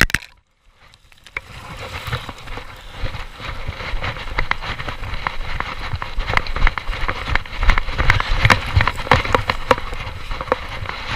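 Footsteps crunching and rustling through dry grass as someone walks with a body-worn camera, over a low handling rumble. A sharp click at the very start, then about a second of near silence before the crunching builds and runs on irregularly.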